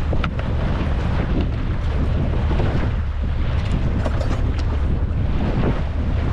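Steady wind buffeting the microphone on an open boat on choppy water, with a couple of brief clicks.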